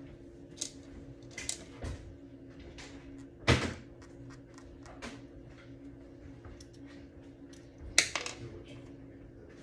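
Scattered small clicks and knocks of a screwdriver, ring screws and scope-ring parts being handled while rings are fitted to a rifle scope, with two louder knocks about three and a half seconds and eight seconds in.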